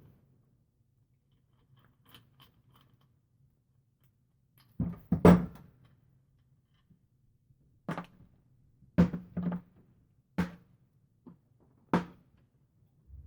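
A run of about seven sharp, irregular knocks and thunks, the loudest about five seconds in, as metal fork parts are handled and knocked against a work surface.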